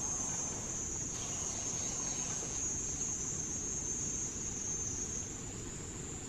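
A continuous high-pitched insect chorus, droning steadily.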